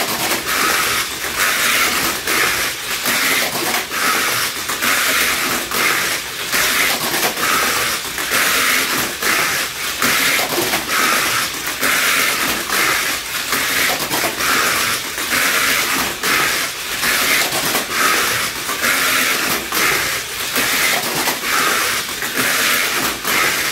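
Tamiya Mini 4WD PRO Chevalier running laps on a plastic Mini 4WD track: a steady, high-pitched whir from its small electric motor and gears, mixed with the rattle of the plastic track, swelling and dipping every second or so as the car goes round.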